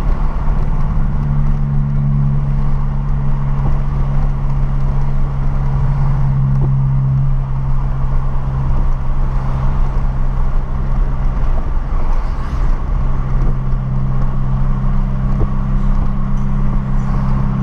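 Renault Clio's 1.6 16V K4M four-cylinder engine running at a steady cruise, a constant drone with a low rumble underneath.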